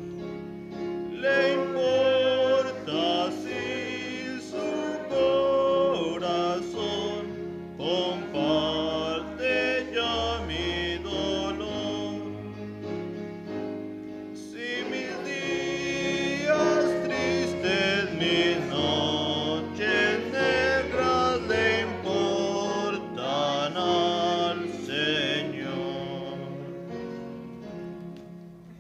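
Congregation singing a hymn to instrumental accompaniment with a sustained bass line. The singing dies away near the end.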